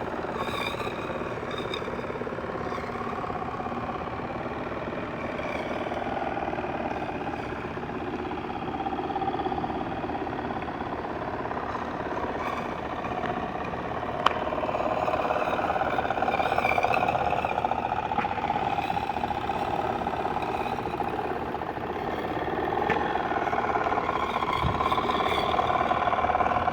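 A small engine running steadily, with a single sharp click about 14 seconds in, after which the running sound is somewhat louder.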